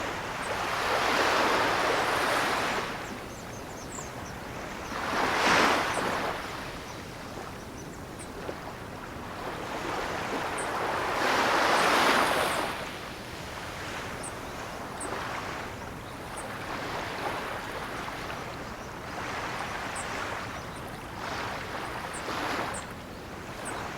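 Ocean waves breaking and washing back, each wave a swelling rush of surf. Three bigger waves break about a second, five seconds and twelve seconds in, and smaller ones follow in the second half.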